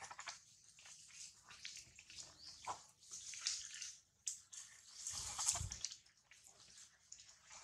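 Faint, irregular wet clicking and smacking from a newborn macaque suckling and mouthing at its mother's nipple. A brief low rumble comes about five seconds in.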